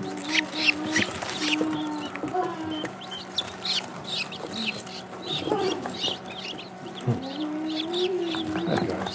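A brood of young guinea fowl keets and Rouen ducklings peeping, many short high chirps overlapping without pause, over a steady low hum.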